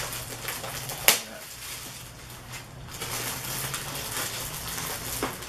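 Clear plastic bag crinkling as a small toy figure is pulled out of it, with one sharp click about a second in.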